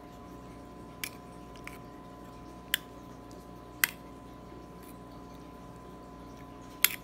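Metal spoon stirring a wet, chunky sauce in a clear dish, with about five sharp clinks of the spoon against the dish, the loudest near three and four seconds in. A steady hum runs underneath.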